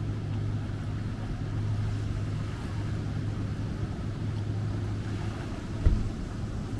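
A motor running steadily with a low hum over background noise, with a single thump about six seconds in.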